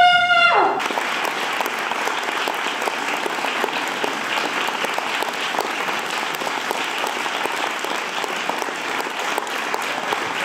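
Theatre audience applauding steadily. A held note of the closing music dies away in the first second as the clapping takes over.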